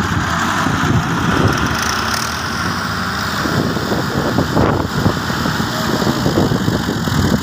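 Farm tractor's diesel engine running steadily under a rough, uneven noise.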